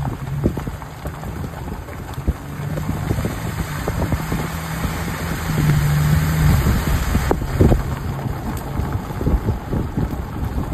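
A car driving, with a steady low engine drone, frequent knocks and rattles, and a rushing noise over it.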